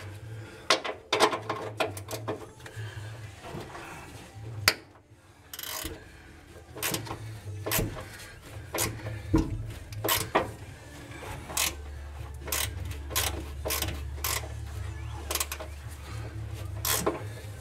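Hand wrench working the rusted front-fender bolts of a 1949 Chevy 3100 pickup, with a ratchet clicking and metal tapping in an irregular series of sharp clicks. The bolts are seized with rust and snapping off rather than turning.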